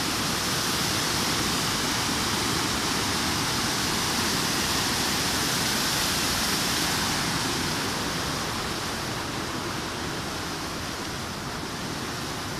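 Steady rush of fast-flowing water, swelling at the start and easing a little after about seven seconds.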